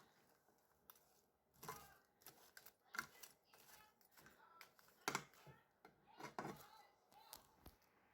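Faint kitchen handling noises: scattered clicks and short scrapes a second or two apart, the sharpest about three and five seconds in.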